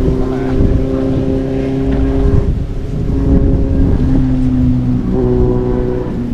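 Steady motor or engine hum whose pitch shifts a few times, with wind on the microphone.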